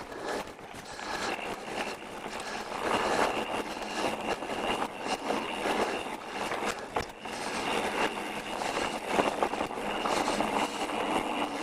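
Pivot Switchblade mountain bike rolling along a dirt trail: a steady rushing noise from tyres and air, with frequent small clicks and rattles from the bike.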